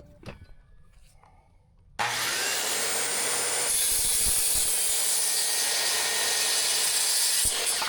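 Power saw cutting through a wooden siding board: it starts suddenly about two seconds in, runs steadily through the cut, and cuts off near the end.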